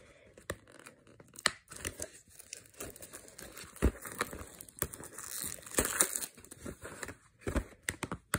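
A shrink-wrapped plastic DVD case being handled and turned over: crinkling of the factory wrap with many light clicks and taps of the case, busiest about five to six seconds in.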